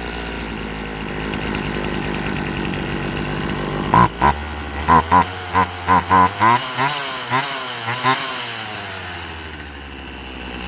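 Old Craftsman chainsaw's two-stroke engine idling steadily, running well now that its carburetor adapter leak is fixed. From about four seconds in comes a run of short, sharp bursts with shifting engine tones, then it settles back.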